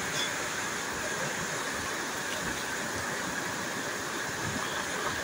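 Steady rushing of a waterfall, an even, unbroken wash of water noise.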